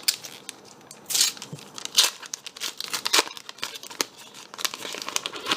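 Foil trading-card packet being torn open and crinkled: a run of irregular sharp rips and crackles of thin wrapper material.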